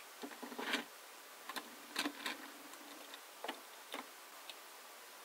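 Hot Wheels die-cast DeLorean toy car being picked up and set on plastic toy train track: a series of small irregular clicks, taps and short scrapes, the loudest just under a second in and around two seconds.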